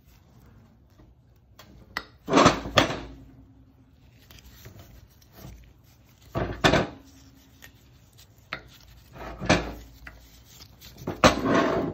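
Metal parts of a disassembled John Deere 6x4 Gator drive clutch being handled and shifted by hand: four bouts of scraping and clunking, a couple of them leaving a brief metallic ring.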